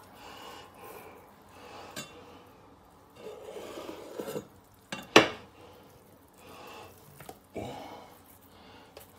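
Boiled pork skin being rolled by hand and cut with a kitchen knife on a wooden chopping board: soft rubbing and a scraping as the blade goes through. A single sharp knock of metal on the board a little after five seconds is the loudest sound, with a softer knock near the end.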